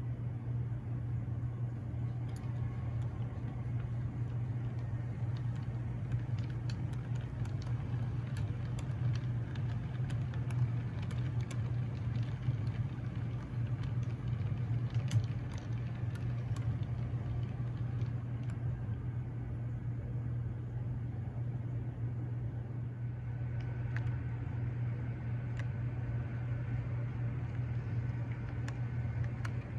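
HO scale model diesel locomotive's sound decoder playing a steady, low diesel engine rumble, with scattered light clicks over it. A faint steady higher whine joins about two-thirds of the way through.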